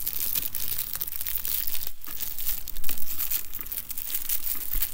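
Clear protective plastic wrap crinkling and crackling as hands pull and tear it off a leather bag handle, a little louder about three seconds in.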